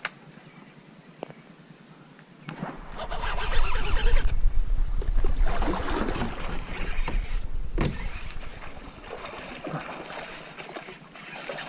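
Kayak being paddled: paddle strokes splashing and sloshing in the water, with a low rumble. It starts about two and a half seconds in after a quiet start, is loudest in the middle and then eases off.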